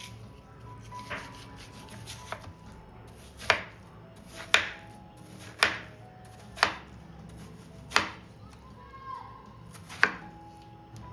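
Knife chopping on a cutting board: about six firm, separate chops roughly a second apart, with a few lighter cuts before them.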